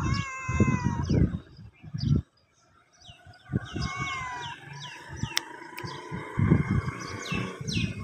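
Black stray cat meowing twice, a slightly falling call of about a second at the start and a shorter one near the middle. Short falling bird chirps come in between, over low rumbling noise.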